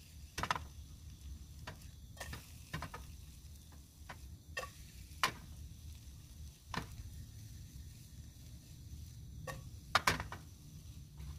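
Utensil tapping and scraping in a frying pan as food is stirred and fried. Irregular sharp knocks, the loudest a quick pair near the end, over a low steady rumble.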